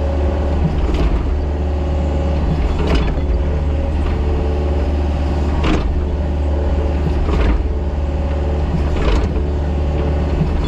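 Mini excavator's diesel engine running steadily under work, with a short knock or clank about every two seconds.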